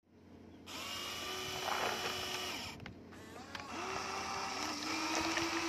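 Small electric motors of a Huina remote-control excavator whining in two runs as the arm and body move: one starts about a second in and stops near the middle, and the other starts again shortly after. A few light knocks sound over the whine.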